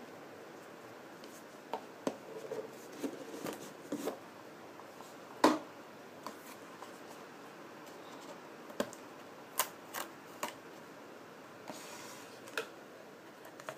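Cardboard packaging being handled and opened: an inner box slid out of its sleeve and its flaps and contents moved. Scattered taps, scrapes and rustles, with the loudest knock about five and a half seconds in.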